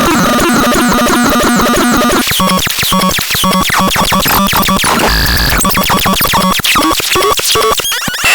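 ELVIS TRON electronic noise synthesizer playing harsh, glitchy electronic sounds. Stuttering held tones give way about two seconds in to choppy, rapidly repeating blips and fast sweeping chirps. There is a brief burst of hiss with a low hum around the five-second mark.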